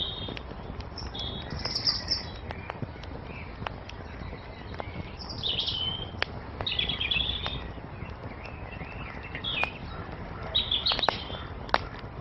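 Wood fire crackling, with sharp pops scattered through it over a steady low rush, while small songbirds chirp in short phrases, several times, loudest in bursts near the middle and toward the end.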